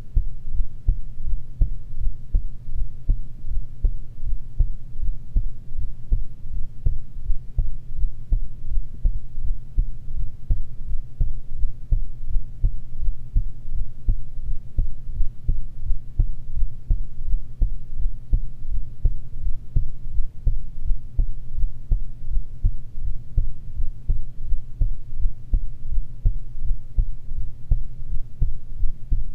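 A person's heartbeat recorded close up: a steady, regular series of low thumps. A steady low hum runs underneath.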